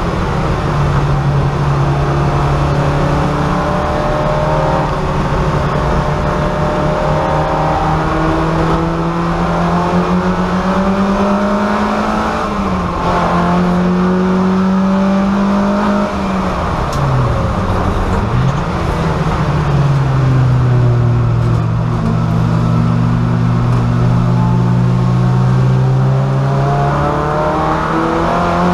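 VW Golf race car's engine heard from inside its stripped cabin, running hard under load. The revs climb slowly and step down sharply about twelve seconds in as it shifts up, dip and blip around sixteen to nineteen seconds as it slows for a corner, then climb steadily again as it accelerates.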